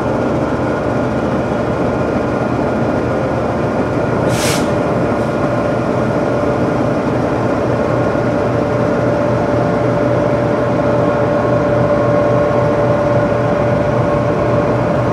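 Pakistan Railways GEU-40 diesel-electric locomotives standing with their engines idling: a steady, loud drone with a held whine over it. A short hiss cuts in about four seconds in.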